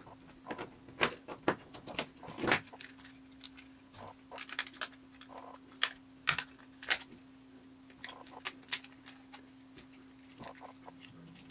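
Irregular small clicks, taps and rattles of a Cityman 150 battery pack being handled and opened, the busiest part in the first couple of seconds. A steady low hum sets in about two and a half seconds in.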